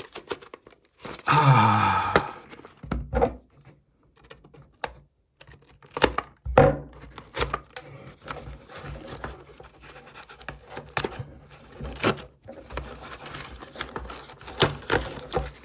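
A packaging box being cut and torn open with a knife: irregular scrapes, rips and clicks, with a short pitched squeak or hum about a second in.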